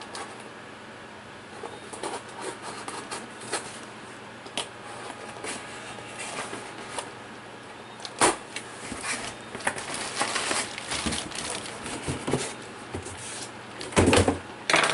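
Handling noises at a workbench: scattered clicks, taps and knocks of objects being moved about. There is one louder knock about eight seconds in and a burst of bumps near the end.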